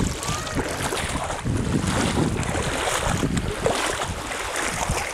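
Wind buffeting the microphone, with water sloshing and splashing around the legs of someone wading through shallow sea water.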